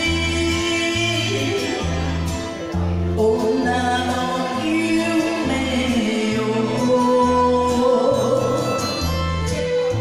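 A woman singing an enka ballad into a karaoke microphone over the backing track, which has a steady, repeating bass line.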